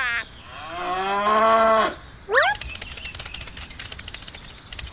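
A cow mooing once, a long call that rises at the start and then holds for over a second. Just after it comes a brief, quick upward-gliding tone, then a run of rapid faint clicking.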